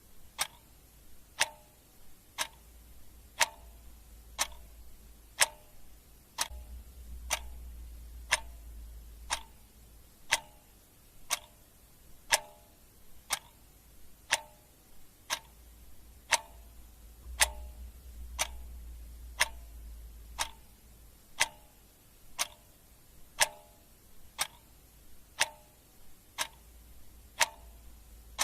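Mechanical clock ticking steadily at about one tick per second, each tick a sharp click.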